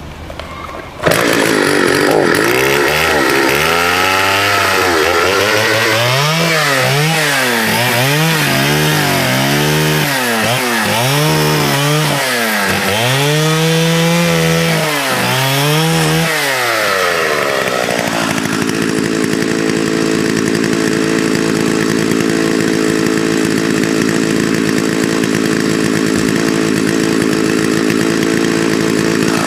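Vintage 1979 Partner S-55 two-stroke chainsaw cutting in suddenly about a second in. It is revved up and down about once a second for some fifteen seconds, then runs at a steady speed from about 18 s to the end.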